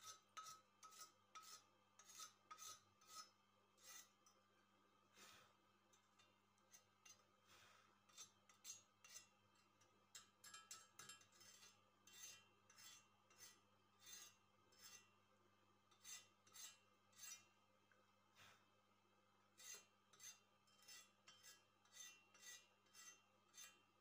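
Short metal-on-metal scraping strokes over a freshly arc-welded bead on a steel tube, cleaning the slag off the weld. The strokes come in quick irregular runs of about two a second, with a couple of brief pauses.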